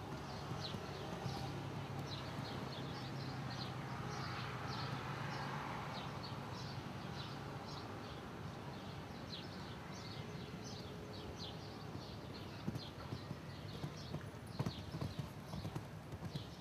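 A horse cantering on a sand arena, its hoofbeats going in a steady rhythm, with a few sharper knocks near the end.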